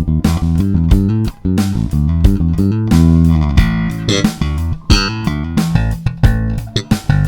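Moon JB-4 Classic jazz-style electric bass playing a busy line of short, sharply attacked notes.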